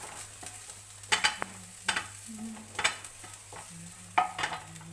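A spatula stirring sweet corn kernels in a non-stick frying pan, with four sharp scrapes against the pan about a second apart, over a light sizzle of the corn frying in butter.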